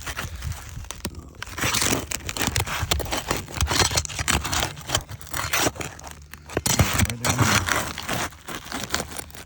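Asphalt roof shingles being pried up and handled to get at their nails: irregular scraping, crinkling and tearing, with sharp clicks throughout.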